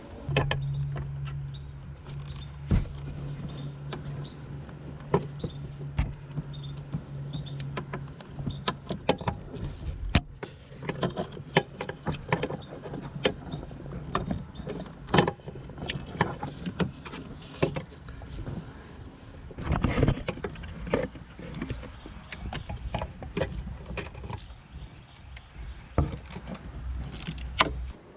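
Hand tools clicking and clinking against metal in a truck's engine bay while a 7mm bolt is backed out, with many short, irregular clicks and knocks. A steady low hum runs under the first half.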